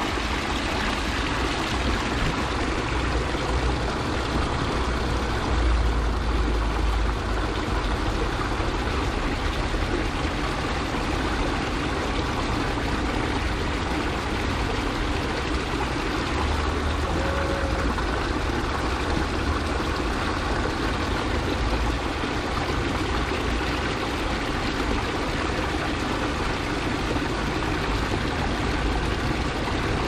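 Spring water gushing from several spouts and splashing into a shallow stone channel, a steady rushing splash. A low rumble runs underneath, swelling about five seconds in and again a little past the middle.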